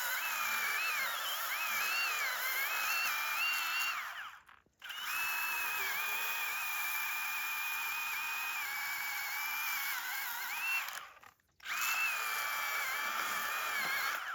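Small battery-powered Milwaukee pruning chainsaw cutting through a small tree trunk, its motor whine wavering and dipping in pitch as the chain bites. It runs in three stretches, stopping briefly twice.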